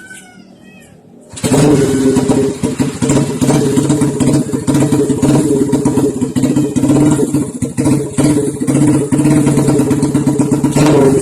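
Single-cylinder four-stroke engine of a Honda Supra Fit-based chopper, fitted with an oversize Kawasaki KZ piston, modified camshaft and PE28 carburettor, starts up about a second and a half in. It then runs loud and steady with small surges in its beat through a custom open trumpet exhaust.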